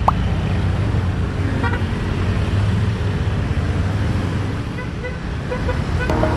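Motorbike engines and road traffic running steadily at low speed, with a short horn toot right at the start. Electronic music comes in near the end.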